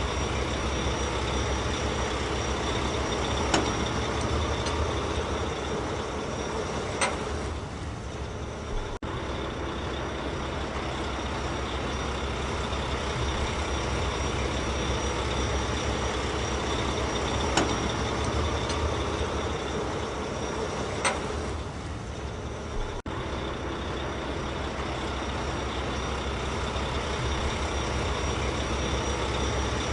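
Steady heavy-vehicle engine noise with a few sharp clicks. It repeats as a loop about every 14 seconds and dips briefly twice.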